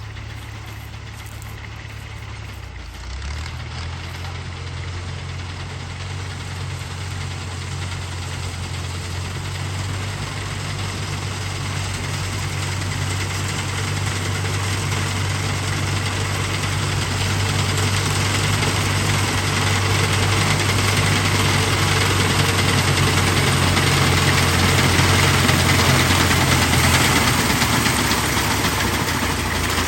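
Fiat 480 tractor's diesel engine running steadily while working a wheat reaper, with the reaper machinery's broad rushing noise over it. The engine note steps up about three seconds in, and the sound grows gradually louder before easing a little near the end.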